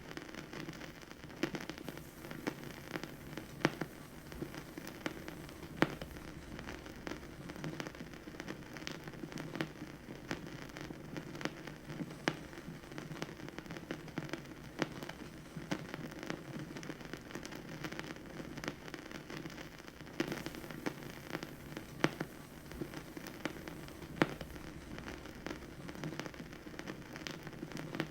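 Vinyl record surface noise from a stylus riding the groove with no music: a dense, steady crackle over a hiss, with a few louder pops every few seconds.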